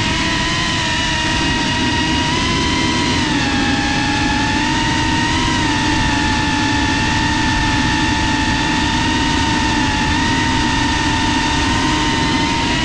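FPV quadcopter's brushless motors and propellers whining steadily under the rush of air, heard from the drone's onboard camera. The pitch dips about three seconds in and rises again right at the end as the throttle changes.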